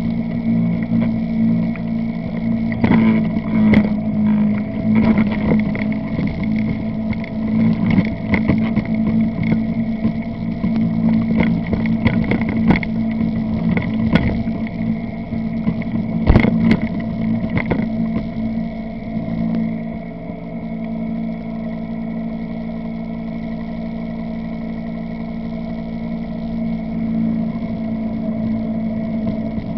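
ATV engine running close by, a steady even drone. Frequent sharp knocks and rattles sound over it until about two-thirds of the way through, after which it runs evenly.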